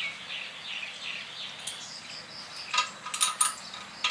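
Birds chirping in the background, then a few sharp, ringing metallic clinks from about three seconds in as hand tools knock against metal.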